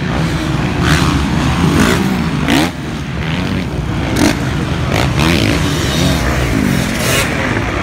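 Several motocross bikes racing on a dirt track, their engines revving up and down in overlapping rising and falling notes, with a brief dip in the noise about two and a half seconds in.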